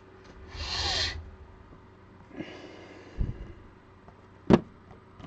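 Cellophane wrap being ripped off a trading-card hobby box in two short tears, followed by handling noises: a soft thump and then one sharp knock near the end.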